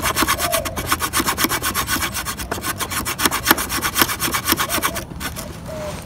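The small folding saw blade of an Ozark Trail multitool cutting through a weathered wooden stick in rapid back-and-forth strokes, the teeth rasping through the wood and cutting well. The sawing stops about five seconds in.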